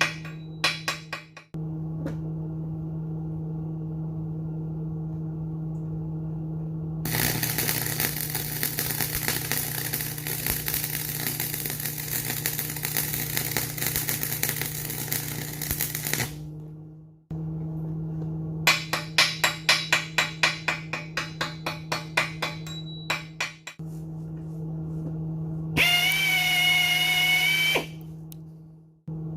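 Arc welder humming steadily, with about nine seconds of crackling arc welding in the middle. Later comes a run of sharp knocks, about three a second, and near the end a brief whining burst from a power tool.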